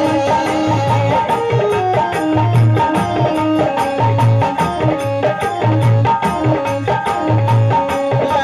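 Live folk stage-show music, an instrumental passage: a hand drum keeps a steady repeating beat under a stepped melody line, with no singing.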